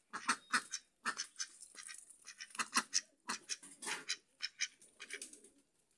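Domestic ducks quacking: a busy run of short quacks, about four a second, with brief pauses between runs.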